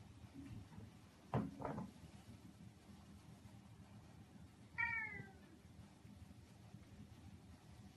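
Domestic cat giving a single short meow that falls in pitch, about halfway through. Earlier, about a second and a half in, come two quick thumps.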